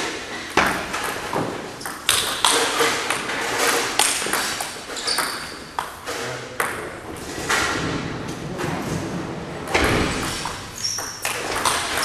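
Table tennis rally: a celluloid ball clicking off paddles and bouncing on the table in quick, uneven succession, each hit ringing briefly in a large hall.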